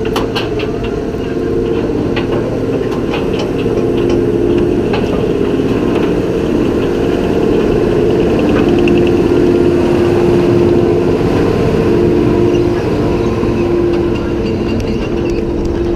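Vekoma suspended family coaster climbing its lift hill: a steady mechanical hum from the lift drive, with scattered clicks early on and a stretch of fast ticking about nine seconds in.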